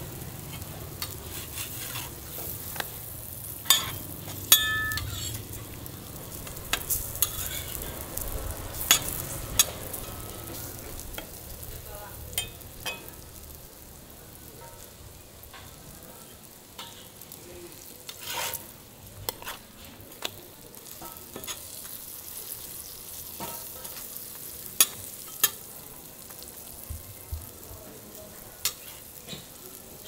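Roti canai sizzling in oil on a flat griddle, with sharp clicks and scrapes of a steel spatula against the griddle scattered throughout.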